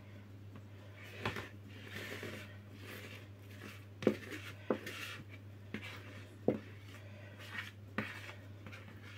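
Spatula scraping thick chocolate cake batter out of a plastic mixing bowl into a paper-lined cake tin. About seven short knocks as the utensil and bowl tap against each other and the tin.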